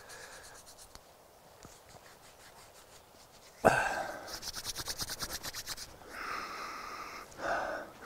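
Palms briskly rubbing and crushing a sprig of yarrow to work out its juice, in a fast rasping rub that starts suddenly about halfway through. It is followed by a long breath drawn in through the nose with the hands at the face, and a shorter one near the end.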